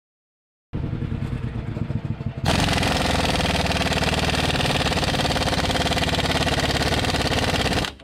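Cordless impact wrench hammering as it tightens the tie-rod nut on a backhoe's front steering knuckle. Rapid hammering starts about a second in, gets louder and denser after a couple of seconds, runs on steadily and cuts off just before the end.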